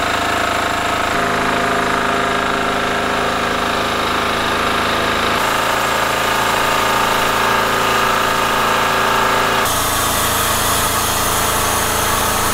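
Steady running of engine-driven machinery at a roadside tyre job, a constant mechanical drone with several steady tones. Its tone changes abruptly three times.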